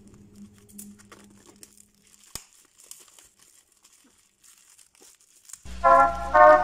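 Faint crinkling and rustling of the corned beef's plastic packaging under handling, with scattered crackles and one sharp click about two seconds in. Loud brass-led music comes in near the end.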